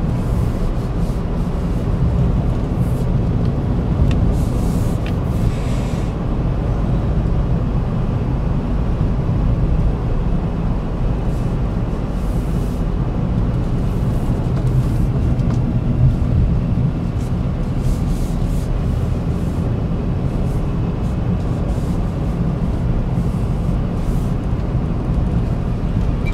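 Vauxhall Agila being driven, heard from inside the cabin: a steady low rumble of engine and road noise, with a few brief hisses.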